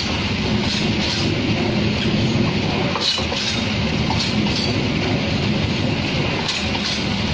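Passenger coaches of an Indonesian KAI train rolling past close by: a steady rumble of steel wheels on the rails, with a few brief sharper noises over it.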